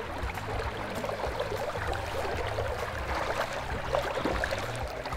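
River water running steadily, an even rushing noise.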